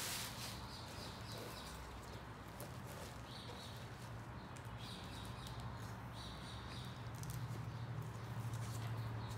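Handling noise from work on a drysuit: a short crinkle of a plastic bag being pushed aside at the start, then faint rubbing and scratching of gloved hands on the suit fabric and its zipper, with a few small clicks near the end. A steady low hum runs underneath.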